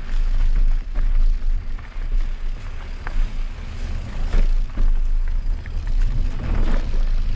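Wind rumbling on the microphone while riding a mountain bike on a trail, with scattered clicks and rattles from the bike over rough ground.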